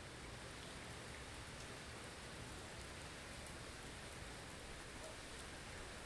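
Steady blizzard ambience: an even hiss of wind-driven snow with a few faint ticks.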